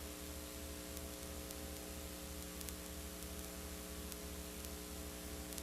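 Steady low electrical hum, several tones held together, under a faint even hiss.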